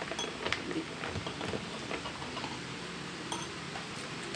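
A spoon stirring in a stemmed glass, clinking against the glass as powdered milk is mixed into water, in irregular light clicks with a sharper clink a little past three seconds in.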